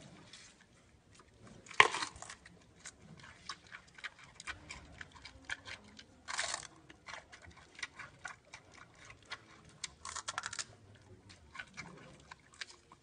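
Giant panda biting and chewing a fresh bamboo shoot: irregular crisp cracks and crunches, with a loud snap about two seconds in and longer crunching bursts in the middle and about ten seconds in.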